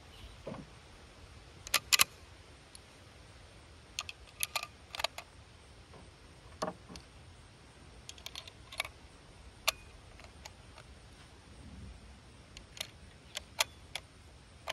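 Metallic clicks and wooden knocks of a sporterized Lee-Enfield No. 1 Mk III rifle being handled and settled onto a bench rest, with the loudest pair of clicks about two seconds in. No shot is fired.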